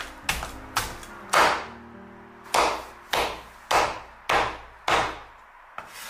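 Cleaver chopping through a cooked whole chicken on a wooden cutting board: about ten sharp chops at uneven intervals, the one about a second and a half in the loudest.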